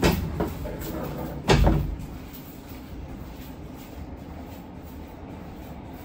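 Sliding doors of a Seibu 6000 series train closing: a sharp knock, then a heavier thud about a second and a half in. The stopped train then gives off a steady low hum.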